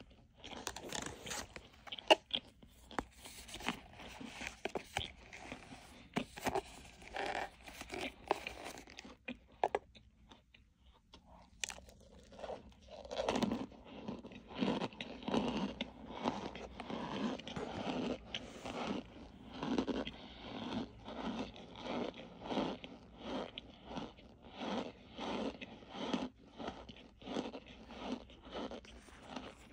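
Close-up biting and crunching into a pressed Argo starch brick: a dense run of crisp crunches, then after a short pause about ten seconds in, steady rhythmic chewing of the crumbled starch.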